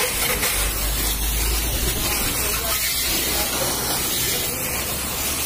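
High-pressure washer jet spraying water onto a motorcycle's bodywork: a steady hiss of spray, with a low steady hum underneath.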